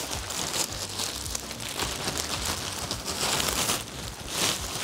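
Plastic packaging crinkling and rustling as a wrapped cushion is handled, with louder crinkles in the second half.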